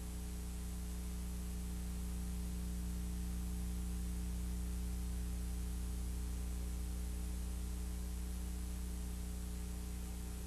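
Steady electrical mains hum with a stack of overtones over a constant hiss: the background noise of a VHS tape transfer.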